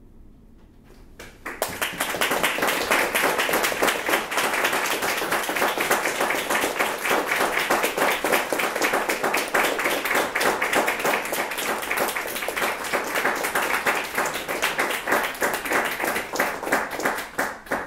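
Small audience applauding. The clapping starts about a second and a half in after a moment of quiet, keeps up evenly, and cuts off suddenly near the end.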